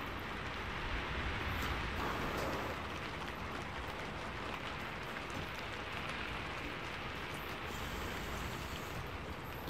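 Rain falling steadily, an even hiss with no let-up.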